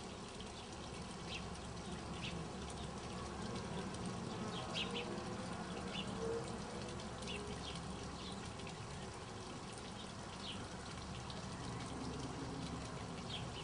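Steady outdoor hiss with short, faint bird chirps dotted through it, roughly one every second.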